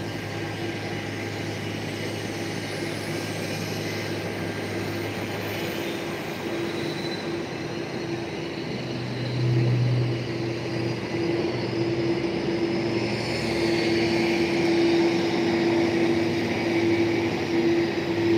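Jet airliner engines running on an airport apron: a steady rushing noise with a steady tone under it, growing louder in the second half.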